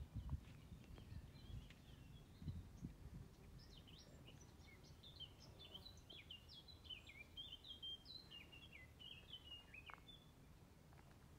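Faint bird song: a rapid string of short, high chirps about four seconds in, lasting several seconds, over a few low rumbles near the start.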